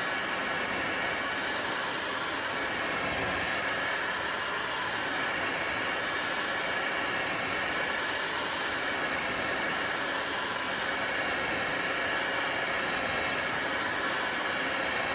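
Electric heat gun blowing steadily: a continuous rush of air with a faint whine, held without a break.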